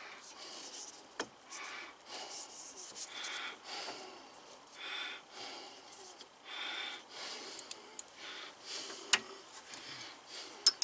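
Faint handling noises: soft rubbing strokes recurring every second or so, with a few sharp clicks, about a second in and twice near the end.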